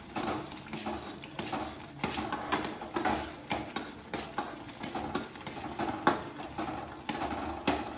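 A spoon stirring a thick semolina kesari mixture in a stainless steel pan, scraping and knocking irregularly against the pan's sides and bottom, a few taps a second.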